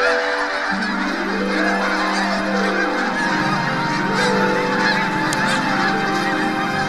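A large flock of snow geese calling together: a dense, continuous din of overlapping honks. Steady low sustained tones run underneath and shift about a second in and again about three seconds in.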